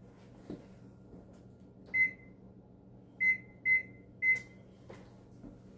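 Kitchen range's electronic control panel beeping as its keys are pressed to set the bake timer: one short beep about two seconds in, then three more in quick succession.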